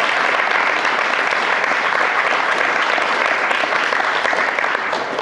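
An audience applauding steadily, many hands clapping.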